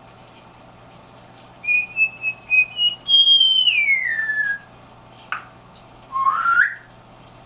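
African grey parrot whistling: a run of short notes stepping up in pitch, then a long whistle that slides steadily down. A single sharp click follows, then a short whistle that rises.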